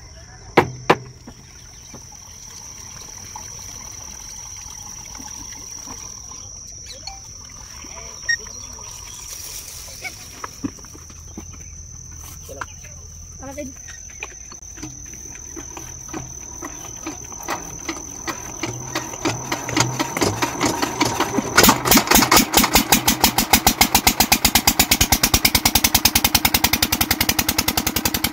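6 HP Kirloskar diesel water-pump engine being started: a few slow, irregular knocks come closer together, then about 21 seconds in it catches and runs with a loud, fast, even beat. A steady high-pitched insect drone sounds until the engine starts.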